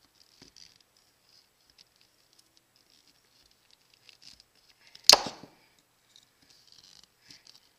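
Flat-blade screwdriver scraping and prying at the brass retaining clips on a GM 5.3L Vortec electronic throttle body: faint light scratching, with one sharp metallic snap about five seconds in.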